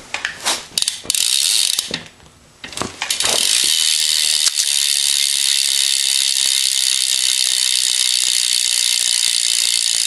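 BMX Odyssey rear cassette hub freewheeling as the rear wheel is spun: its pawls click so fast they run together into a steady, high buzz. A few sharp knocks come in the first second, before the steady buzz sets in about three seconds in.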